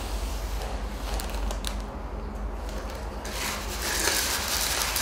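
Metal spoons stirring dry popcorn kernels on plates: a few light clicks, then from about three seconds in a steady scratchy rattle of kernels scraping against the plates.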